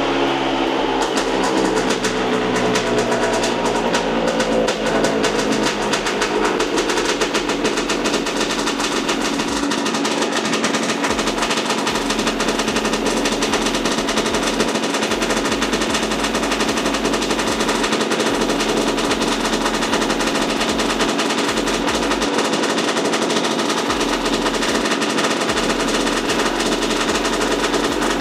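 Vespa PX's Quattrini 244cc two-stroke engine winding down from revs in the first second, then idling on the dyno with a fast, steady popping.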